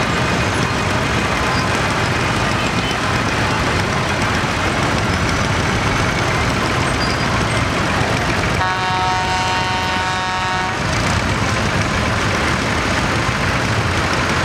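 Engines of vintage Ford and Fordson tractors running at low speed as a line of tractors drives slowly past. A horn sounds once for about two seconds just after the middle.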